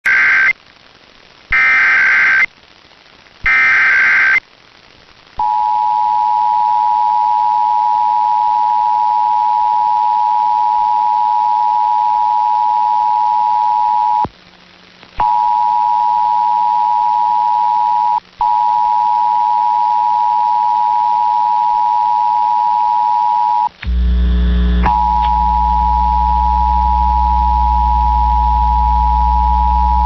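Emergency Alert System Required Monthly Test heard over AM radio: three one-second bursts of SAME header data tones, then the steady two-tone EAS attention signal (853 and 960 Hz). The attention signal drops out briefly a few times, and a low hum comes in under it near the end.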